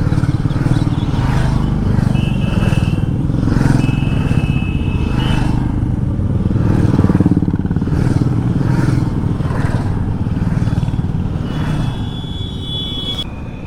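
Royal Enfield motorcycle engine running while under way: a steady low rumble.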